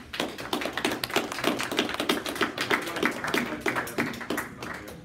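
A small group of people applauding, a dense run of claps that thins out near the end.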